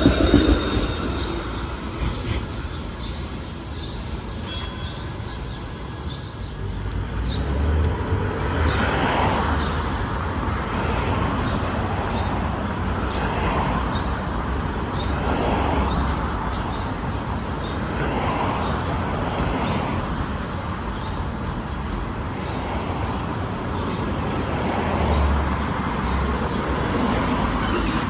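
TTC streetcar running on street track among road traffic: a fading high wheel squeal at the start, then a steady rumble of the car and passing vehicles rising and falling every couple of seconds.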